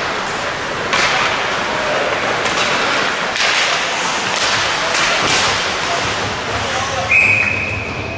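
Ice hockey play in an arena: skate and stick noise with repeated thuds against the boards, then a referee's whistle sounding once for about a second near the end.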